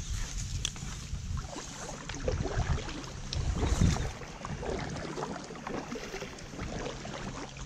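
Packraft being paddled through a narrow channel in dense reeds: water sloshing and reed stems rustling and crackling against the inflatable hull over a low rumble, a little louder around the middle.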